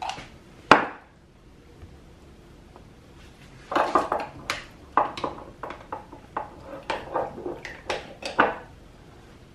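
A metal spoon scraping and clinking against a jar while scooping out solid coconut oil. There is one sharp clink about a second in, then a quick run of scrapes and taps for several seconds in the second half.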